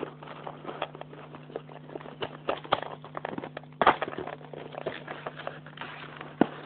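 A chocolate box and its plastic packaging being handled and opened: irregular clicks, taps and crinkles, with louder knocks at the start and about four seconds in, over a steady low hum.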